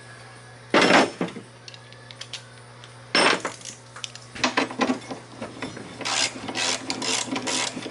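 Metal hand tools clinking and scraping as socket-wrench extensions are pulled apart and handled: two short louder scrapes about a second and three seconds in, then a run of quick irregular clicks and scrapes.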